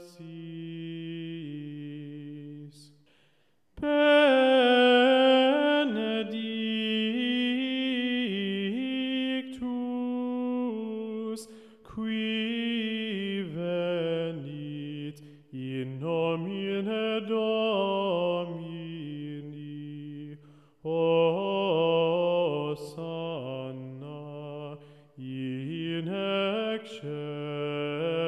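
Slow, solemn sung chant with no words spoken over it: drawn-out vocal phrases with short breaks between them, softer at first and louder from about four seconds in.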